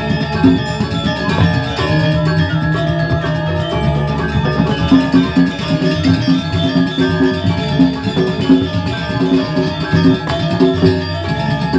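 Balinese gamelan playing dance accompaniment: bronze metallophones ringing in quick, repeating melodic figures with drums underneath.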